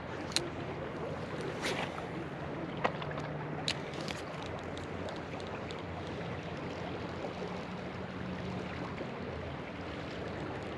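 Steady rush of the Colorado River's current flowing past a gravel bank, with a few sharp clicks in the first four seconds and a faint low hum through the middle.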